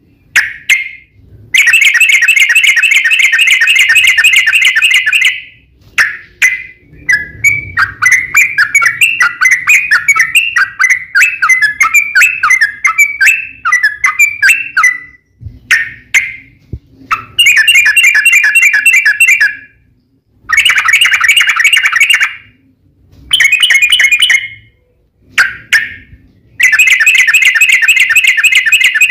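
Yellow-vented bulbul (trucukan) singing loudly in long, rapid chattering runs of repeated notes: about half a dozen bursts of a few seconds each, with short pauses between them. This is the long 'ropel' song of a bird in fighting mood.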